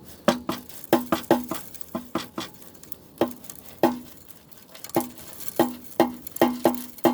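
Steel hand crusher being struck over and over to pound roasted quartz ore into powder: sharp metal knocks, each with a brief ringing tone, coming irregularly and quickening near the end.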